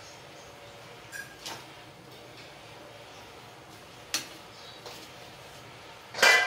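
Metal spatula stirring chopped vegetables in an aluminium pot, with a few light knocks and scrapes against the pot, then one loud ringing metallic clank near the end.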